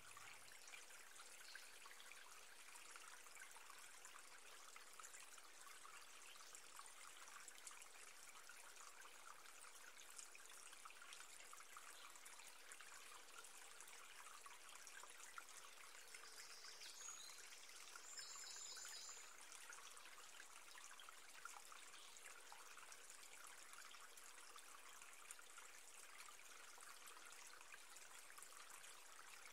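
Near silence: faint steady hiss with a light crackle, and a brief high-pitched chirp a little past halfway.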